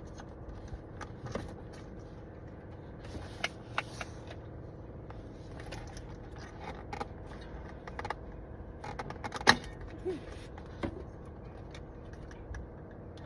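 Scattered light clicks and taps of plastic interior trim and hand tools as steering column trim clips are worked loose, with one sharper snap past the middle, over a faint steady hum.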